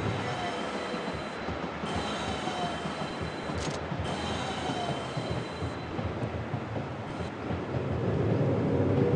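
Express passenger train running on the rails, a steady noise of wheels on track with a faint high wheel squeal in the middle.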